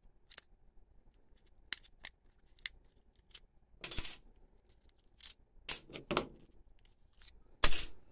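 Steel utility knife blades dropping and clattering onto a metal tabletop, loudest about four seconds in and again near the end, with a smaller rattle around six seconds. Light clicks come from the knife's plastic blade magazine as the blades are worked out of it.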